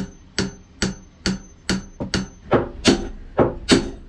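Steady hammer blows, a little over two a second, on the stainless steel collar that clamps the steering and autopilot arm to a sailboat's rudder stock. The blows grow louder about halfway through. The collar is gripping the shaft extremely tight, and only whacking it works to free it.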